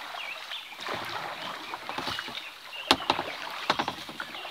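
Kayak paddling on a river: paddle strokes splashing and water rushing along the hull. A few sharp knocks and splashes come about three seconds in and again near the end, the first of them the loudest.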